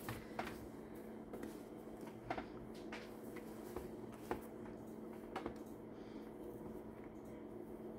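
Faint handling noises from a doll being turned and its hair worked by hand: soft rustles and a few light ticks, over a steady low hum.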